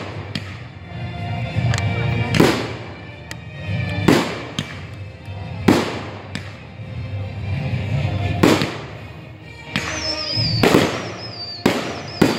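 Aerial fireworks going off, with about seven sharp bangs a second or two apart and crackling noise between them. A high, wavering whistle joins about ten seconds in.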